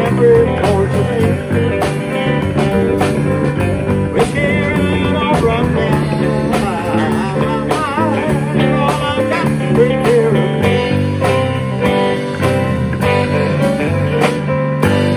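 Live band playing an instrumental passage of a country-rock song: electric guitar, bass guitar, drum kit and keyboard with a steady beat, and a lead line with wavering, bent notes in the middle.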